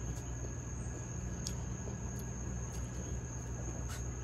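Insects outdoors keeping up a steady, high-pitched drone, over a low steady hum, with a couple of faint clicks.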